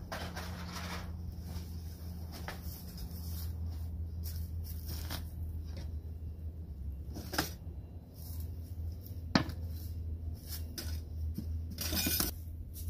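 Metal cookware clanking as pots and a frying pan are lifted out of a cardboard box and set down. There are a few separate sharp knocks, the loudest about nine seconds in and a quick cluster near the end, over a steady low background rumble.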